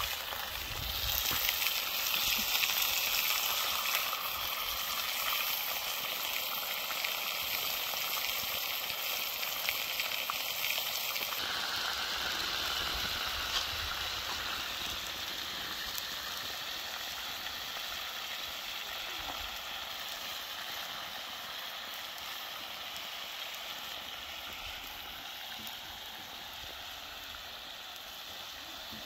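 Meat patties sizzling in hot fat in a wide black pan over a wood fire. The sizzle swells about a second in, is loudest over the next few seconds, then slowly eases off.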